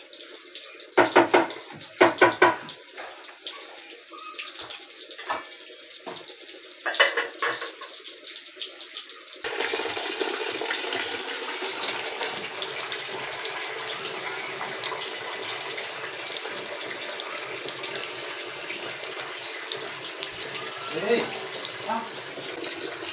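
Fish pieces frying in hot oil in a wok, a steady sizzle thick with fine crackles, which starts abruptly about a third of the way in. Before that come a few brief loud sounds over a quiet background.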